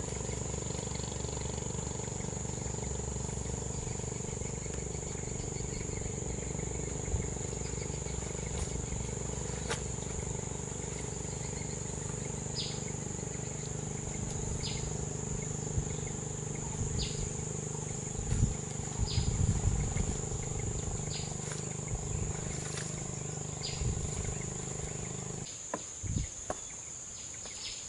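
Steady outdoor ambience: an unbroken high-pitched insect drone over a low steady hum, with faint light ticks every second or two. The low hum drops away near the end.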